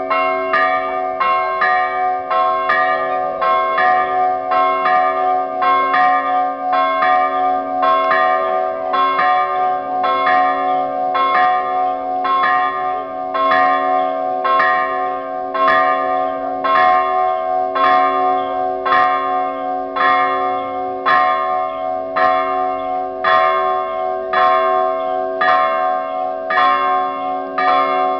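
Several church bells of different pitches ringing continuously in quick, even strikes, about one to two a second, with their tones overlapping: festive ringing for the church's feast day.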